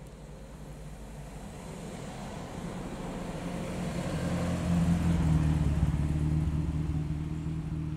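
A classic British hatchback's engine running as the car drives past at low speed, growing louder as it comes close, loudest about halfway through, then easing slightly as it moves away.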